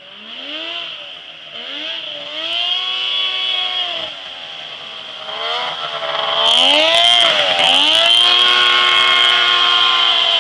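Off-road buggy's Polaris snowmobile three-cylinder engine revving up and down repeatedly as it drives, getting louder about six seconds in.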